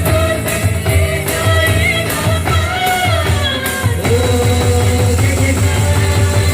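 Live Christian worship music: voices singing a melody over band accompaniment with a steady drum beat.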